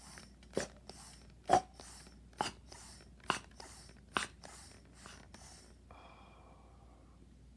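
Kenner Real Ghostbusters Sludge Bucket toy's hand-pumped ectoplasm bubble feature being worked: a string of sharp clicks and air puffs, about one a second. A faint hiss follows near the end.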